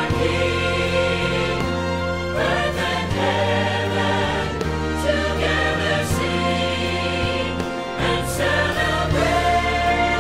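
Choir singing a Christian Christmas song over instrumental accompaniment, with long held notes and a steady bass line.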